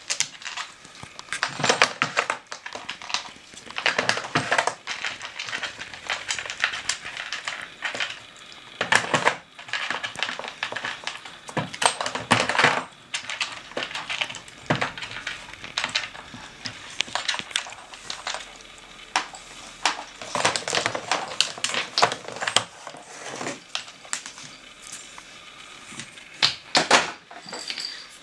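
Irregular hard-plastic clicking and clattering as a dog paws and noses a Nina Ottosson Dog Twister treat puzzle, shifting its sliding segments and knocking loose bone-shaped pegs on a wooden floor.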